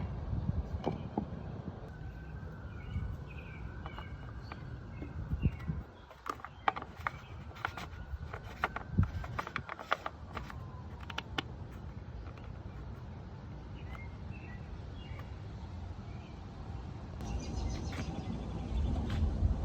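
Small birds chirping now and then over a steady low background rumble, with a run of sharp clicks and taps in the middle.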